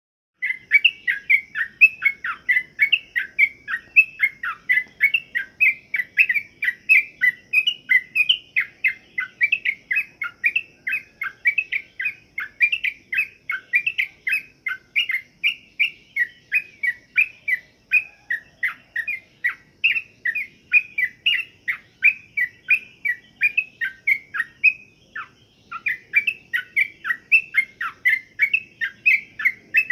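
Yellow-vented bulbul (trucukan) calling: a steady run of short, quick chirps, about three a second, with a brief pause about 25 seconds in.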